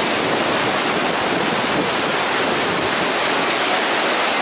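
Ocean surf breaking and washing over a rocky beach: a loud, steady rush of water noise.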